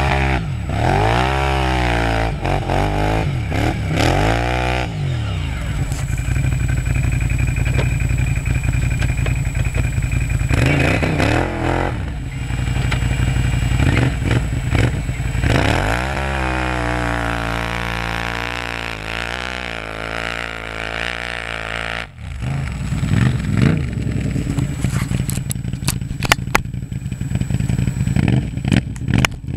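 Can-Am Renegade 800 XXC quad's V-twin engine revving up and down repeatedly under load in deep snow, holding high steady revs in between. After a sudden break near the end, the engine comes back under a run of sharp clattering knocks.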